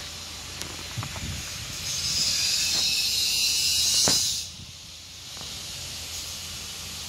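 Steady hissing noise that grows louder about two seconds in and drops off suddenly about four and a half seconds in, with a couple of soft knocks.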